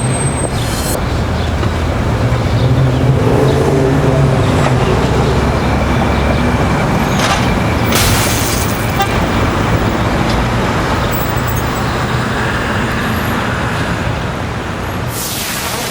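Steady road traffic noise: a continuous wash of passing vehicles with a low engine hum, and brief louder passes about halfway through and near the end.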